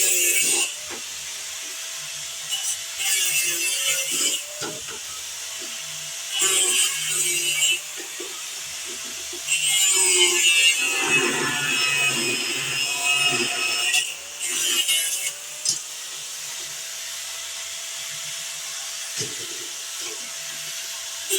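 Hand grinder working aluminum horseshoes in repeated short passes of a second or so, with one longer pass of about four seconds near the middle. A steady low hum runs between the passes.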